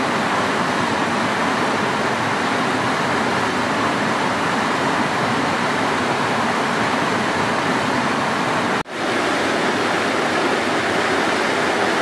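Waterfall rushing over sandstone: a loud, steady rush of churning white water. About nine seconds in, the sound cuts out for a split second and then resumes.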